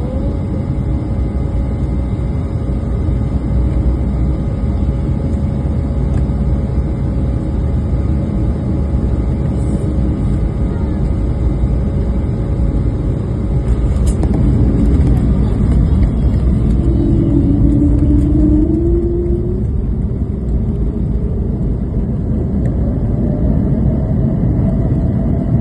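Airliner cabin noise during landing: a loud, steady low rumble with faint constant engine tones. Partway through the sound swells, and a whine rises in pitch near the end.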